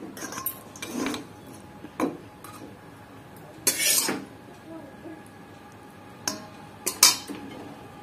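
A steel ladle and a stainless steel bowl clinking, knocking and scraping together in a series of separate clatters. The loudest come about four seconds in and again about seven seconds in.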